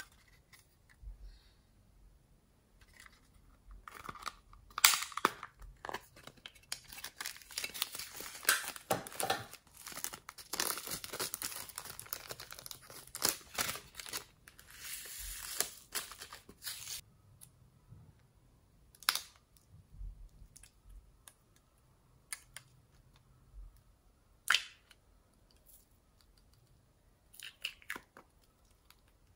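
Thin plastic bag crinkling and tearing as it is handled and opened, a dense crackle lasting about ten seconds. After it come a few separate sharp clicks of small plastic cases being snapped open.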